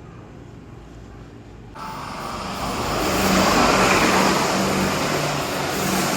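A JR Yamatoji Line electric train approaching and running past. Its noise comes in suddenly about two seconds in and quickly grows loud, with a repeating low hum under the rushing noise.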